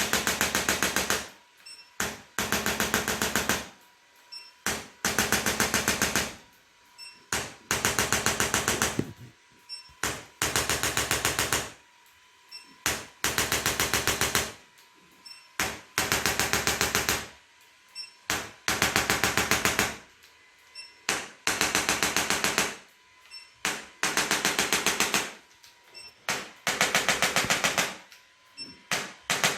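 Handheld electric percussion instrument running against the back in repeated bursts: fast rattling strikes for about a second and a half, a short pause, then again, about every two seconds.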